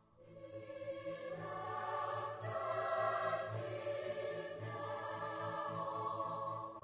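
Background music of sustained choir-like voices holding slow chords, fading in at the start and dropping away at the end.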